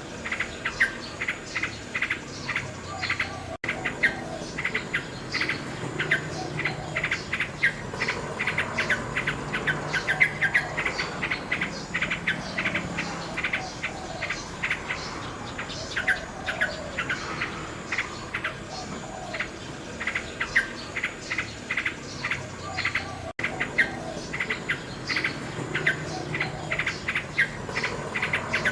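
Nightingale singing, with runs of rapid repeated notes over a background of continuous chirping. The sound briefly cuts out twice.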